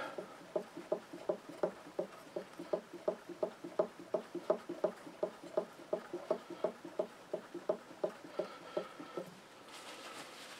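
A small steel scratch stock cutter rubbed back and forth on a hard Arkansas oilstone in short, quick strokes, about three a second, polishing the cutter's edge. The strokes stop near the end and a cloth rustles briefly.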